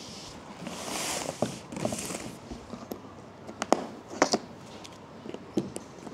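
Plastic clips on the bottom of a cardboard box being pinched and pulled out one after another: a soft rustling scrape, then several sharp clicks and knocks.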